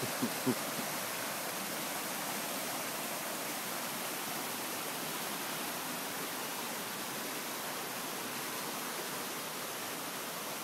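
Creek water flowing, a steady, even rush of water.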